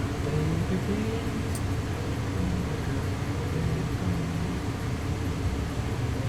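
Steady mechanical hum, like a fan, with a single small click about a second and a half in.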